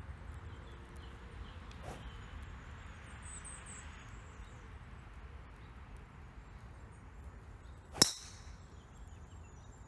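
Driver striking a teed golf ball about eight seconds in: one sharp crack, by far the loudest sound, over steady background noise.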